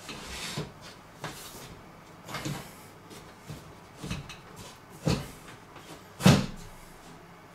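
Kitchen cabinet panelling at the foot of a built-in oven being handled, several short knocks and rubs with the loudest two knocks about five and six seconds in.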